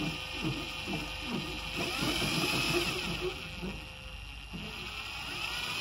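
Cordless drill spinning the shaft of a two-wire magnetic distributor, the motor whine rising and falling as the trigger speed changes. It eases off about four seconds in, then picks up again as the drill goes faster.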